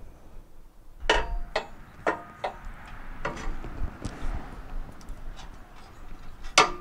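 Irregular metal clinks and knocks, about seven of them, several ringing briefly, from steel mower-deck parts being handled and fitted.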